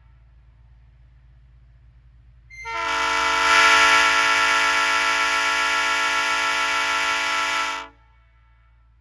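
Multi-chime train air horn sounding one long blast of about five seconds, a chord of several tones held steady, starting a couple of seconds in and cutting off sharply.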